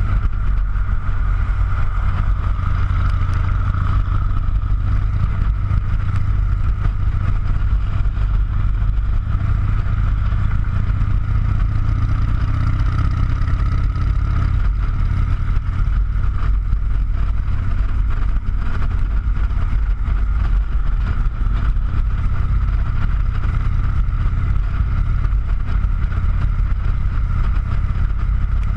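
Motorcycle engine running at a steady cruising speed, a constant low rumble with a steady higher hum above it and no change in pace.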